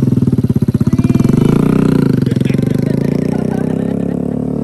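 Small motorcycle's engine pulling away under throttle, a fast, even chugging that rises in pitch about a second in, then holds steady and fades as the bike rides off.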